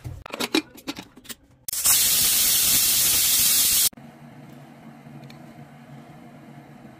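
A few sharp clinks, then a loud steady hiss of steam from an aluminium pressure cooker lasting about two seconds and cutting off suddenly, followed by a faint low hum.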